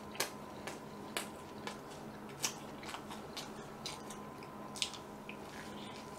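A person biting and chewing a cream-topped pastry close to the microphone: a string of crisp crunches and wet mouth clicks, about two a second, thinning out in the last second.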